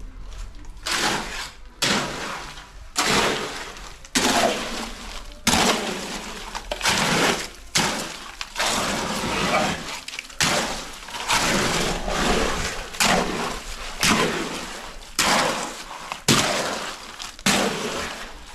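Expanded clay pellets being tumbled with cement-sand mortar in a mixer drum for a floor screed: a rattling, crunching crash repeating about once a second as the load falls.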